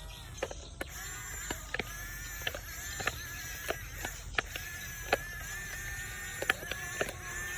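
RC excavator's small electric motors whining, the pitch rising and falling, with irregular sharp clicks and knocks throughout.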